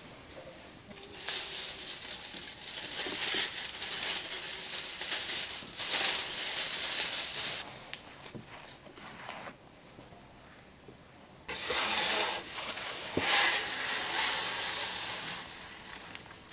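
Aluminium foil crinkling and rustling as it is pulled off a large baking tray, in two long stretches with a quieter pause of about two seconds between them.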